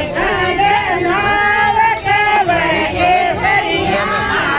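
A group of women and men singing a Marwari folk song together, many voices overlapping in a loud, continuous melody.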